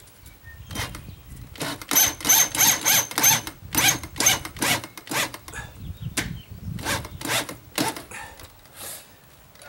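Power drill driving a screw into the door frame in many short trigger bursts, about three a second for a few seconds and then more spaced out, with a thin high motor whine in some of them, until the screw is snug.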